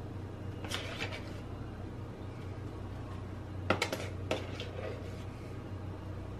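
A spoon scooping whipped coffee foam from a plastic mixing bowl, knocking and scraping against the bowl and the piping bag. There are a few light clicks about a second in, then a louder cluster of knocks near four seconds in, over a steady low hum.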